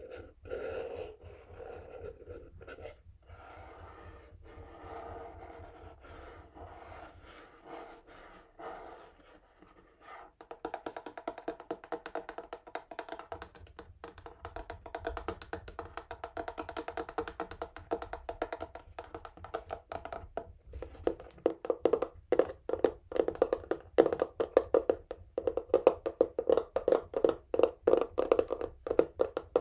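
Fingernails scratching a textured cardboard box, then, from about ten seconds in, fast fingernail tapping on it that grows louder toward the end.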